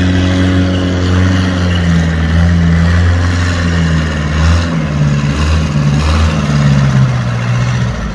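Thai long-tail boat's engine running hard as the boat speeds past, loud, its pitch slowly falling.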